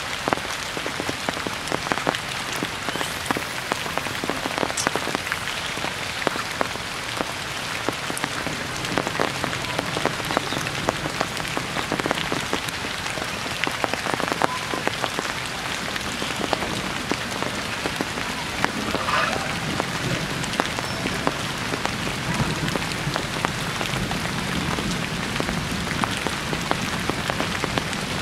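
Heavy rain falling through tree foliage: a steady hiss with many sharp, close drop hits.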